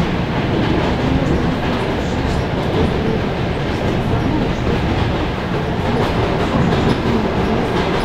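Steady rumble of a moving train heard from inside the carriage, its wheels running on the rails.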